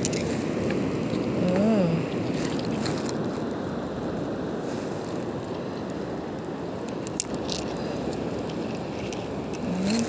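Steady rush of waves on a sandy beach, with wind noise.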